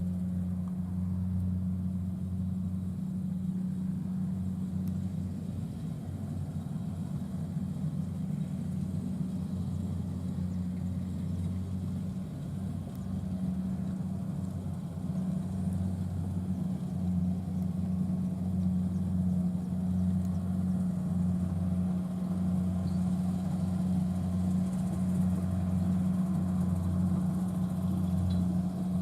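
Rice combine harvester's diesel engine running steadily at an even speed, a deep continuous hum that grows a little louder about halfway through.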